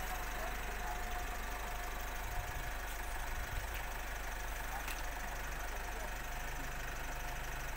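Vehicle engine idling steadily, with a few faint clicks.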